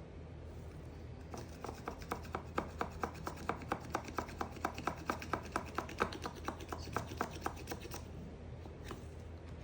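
A knife cutting through dry soap in quick, even strokes, making a run of crisp crunches about four a second. It starts about a second in and stops near the end.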